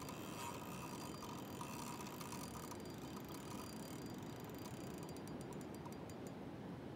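Faint steady outdoor background hiss, with a quick run of small, evenly spaced clicks from a spinning fishing reel near the end, while a large sturgeon is being played on the line.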